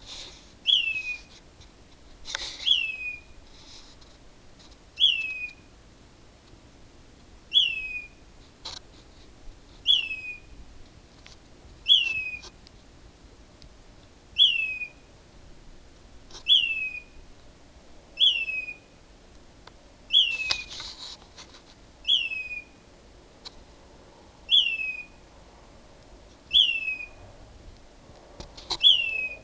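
A bird calling at night from a mesquite tree: one short falling whistle, repeated about every two seconds, again and again.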